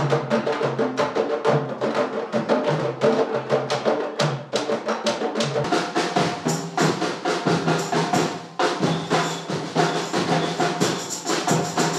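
A carnival drum troupe playing live: dense, rhythmic stick strikes over deep pitched drum tones in a continuous driving rhythm.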